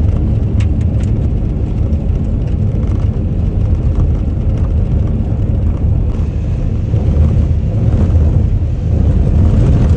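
Vehicle driving on a winter highway: a loud, steady, low rumble of road and wind noise.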